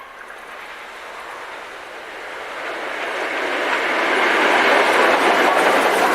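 Steam-hauled passenger train behind Peppercorn A1 Pacific 60163 Tornado approaching and running past. The rumble and rattle of the wheels on the rails grow louder over the first four seconds, then stay loud.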